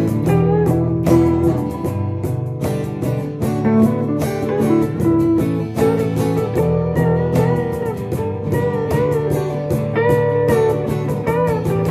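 Instrumental break of a country song played by an acoustic band: strummed guitars keep a steady rhythm under a lead melody whose notes bend and slide in pitch.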